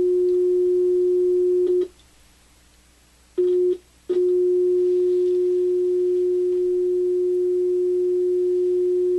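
Steady sine-wave test tone from a two-transistor differential amplifier, heard through an audio transformer. It cuts out with a click about two seconds in, returns briefly, then comes back steady with a click a little after four seconds. The tone goes silent while the two inputs are shorted together, since both transistors then carry the same signal, and returns when the lead is lifted.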